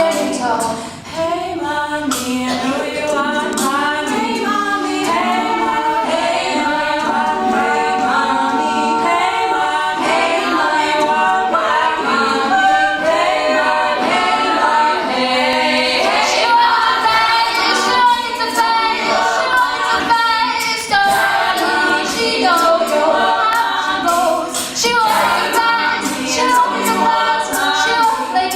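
A cappella vocal group singing in close harmony, female voices leading, with voices only and no instruments.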